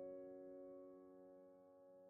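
Background piano music: a single held chord fading away slowly.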